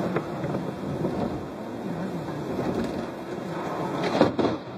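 Thunder rumbling over the steady noise of a car driving on a wet road in rain, heard from inside the car, with a brief louder noise about four seconds in.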